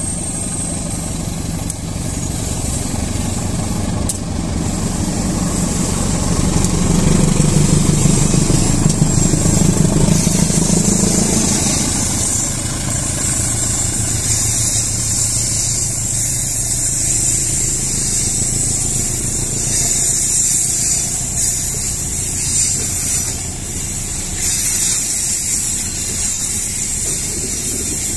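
CC201 diesel-electric locomotive working hard under load as it pulls its train up the grade past the listener. The engine drone swells to its loudest a quarter of the way in, then gives way to the steady rolling noise of the passenger carriages' wheels on the rails.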